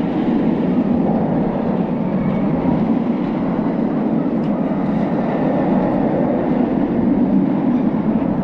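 Steel roller coaster train rumbling steadily along its track.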